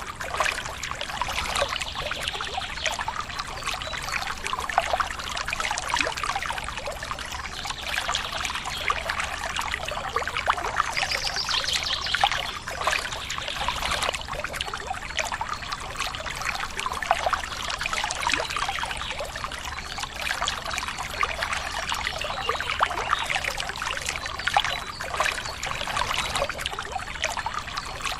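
A small stream of water pouring and trickling steadily, with a splashing crackle.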